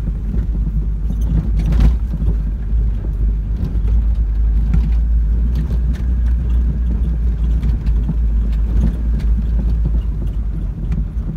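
Car driving over a rough dirt road, heard from inside the cabin: a steady low rumble with scattered knocks and rattles, the loudest a knock about two seconds in.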